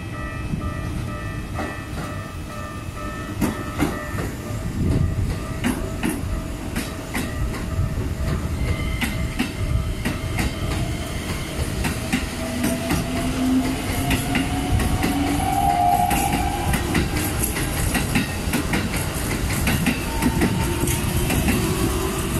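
A Keikyu electric train passes over a level crossing, wheels clacking over the rail joints above a steady rumble, while the crossing's warning bell rings on one steady pitch. Partway through, a whine rises in pitch as the train's motors change speed.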